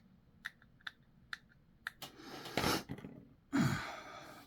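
Small plastic model-kit parts being handled and fitted: a few light clicks in the first two seconds, then two longer rustling, scraping sounds.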